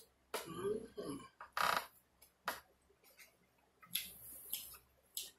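Close-miked eating sounds: mouth smacking and chewing, with a few sharp clicks of a spoon against a dish.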